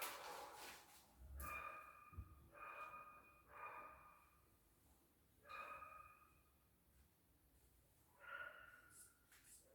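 Faint, heavy breathing after ten squats: about five soft breaths, each with a slight whistle-like tone, followed by a few faint ticks near the end.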